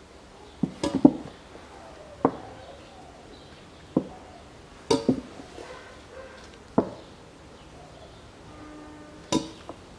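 Plastic bottle of gear oil being squeezed and tipped into the filler hole of a rear differential: irregular sharp clicks and knocks, about one every second or two, the loudest cluster about a second in.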